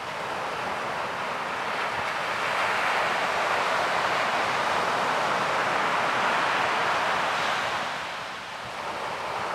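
Ocean surf: a wash of rushing noise that swells over the first few seconds, holds, and dips briefly near the end before building again.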